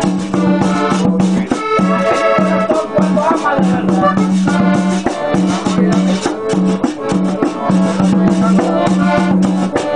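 Live cumbia played on accordion, a tall hand drum and a hand-held tube percussion instrument, with a steady rhythmic pulse and the accordion's held chords.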